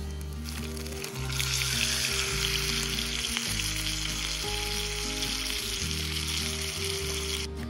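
Chicken frying in a cast-iron skillet: a loud, steady sizzle that starts about a second in and cuts off suddenly near the end.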